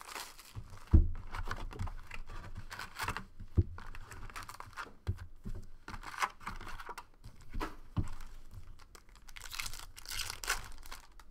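A cardboard trading-card hobby box being torn open and its foil-wrapped card packs handled and ripped open, with crinkling wrappers and a few knocks on the table. The loudest thing is a single thud about a second in.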